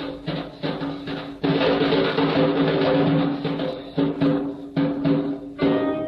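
Instrumental break in a song: drum strikes over held chords, with a denser drum roll about a second and a half in.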